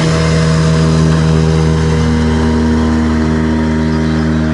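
Outboard motor of a small fishing boat running at a steady speed, its pitch dipping slightly about three seconds in.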